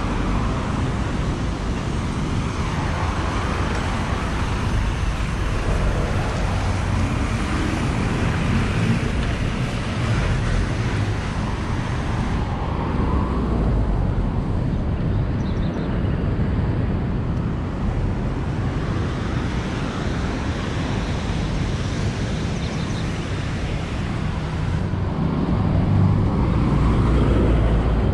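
Road traffic on a multi-lane avenue: cars passing one after another, each swelling and fading over a steady low rumble, a little louder near the end.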